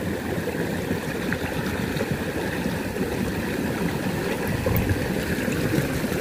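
Small stream flowing and trickling steadily.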